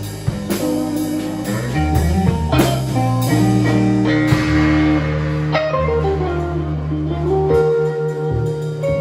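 Live blues-rock power trio playing instrumentally: electric guitar lead over bass guitar and drum kit. The guitar's pitch swoops down and back up about six to seven seconds in.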